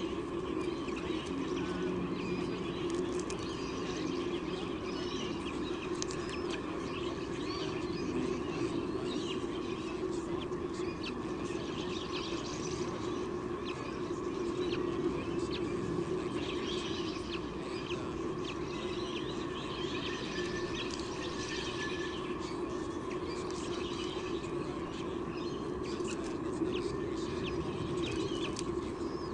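Many short, high bird chirps and peeps in quick succession over a steady low hum.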